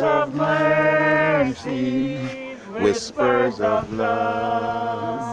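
Voices singing a hymn unaccompanied, in long held notes with short breaks between phrases.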